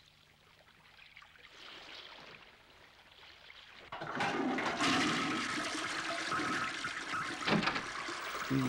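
Toilet flushing: after a quiet stretch, a rush of water starts abruptly about four seconds in and keeps running.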